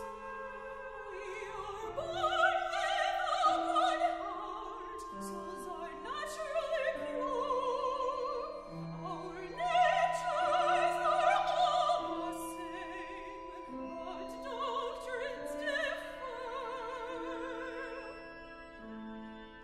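Operatic singing from a chamber opera: a high voice sings long phrases with wide vibrato over a small instrumental ensemble holding sustained notes. The louder sung passages come about two and ten seconds in.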